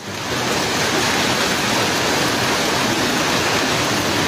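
A hailstorm: hail and heavy rain pelting down on a street, a dense, steady hiss that starts abruptly.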